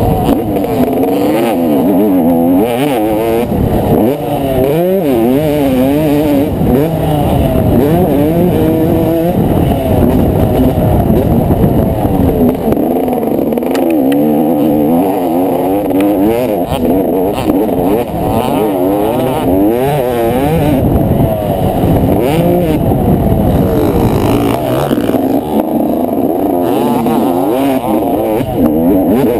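Yamaha motocross bike's engine revving up and down over and over as it is ridden hard around a dirt track, the pitch climbing and dropping every second or two.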